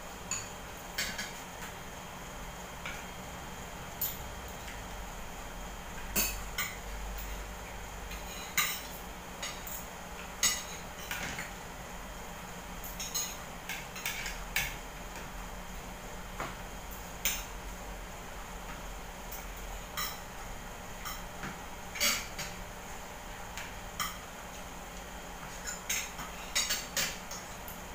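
Spoons and forks clinking against plates as people eat: irregular sharp clinks, a few to several every couple of seconds, over a faint steady hum.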